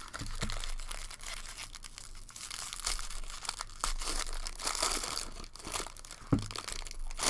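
Foil trading-card pack wrapper being torn open and crinkled by hand: a dense crackle with quick rips, and a sharper crack about six seconds in.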